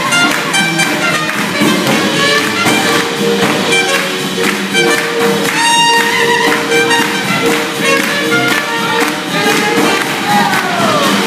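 Swing jazz band playing live, with a steady beat under held melody notes.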